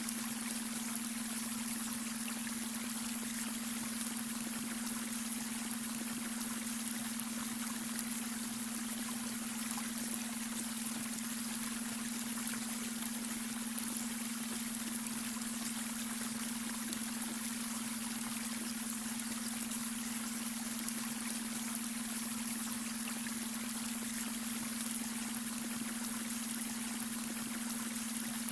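Babbling brook: water running and trickling steadily, with a steady low tone underneath, the beta brainwave frequency mixed into the soundscape.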